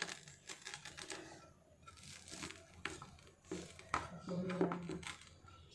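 Steel spatula edge pressed down through a crisp, rolled dosa on a plastic plate, cutting it: irregular crackling and crunching of the crust.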